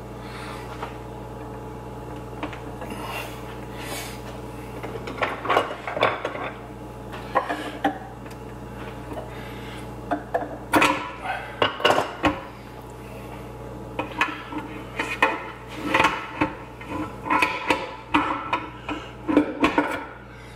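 Metal transfer-case parts and tools being handled: irregular clinks, knocks and clatter, busier in the second half, over a steady low hum.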